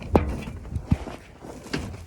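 Shuffling and rustling of someone moving about, with two short knocks: one just after the start and one about a second in.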